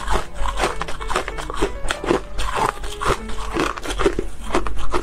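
Ice being bitten and chewed close to the microphone: many sharp crunches in quick, irregular succession, over background music.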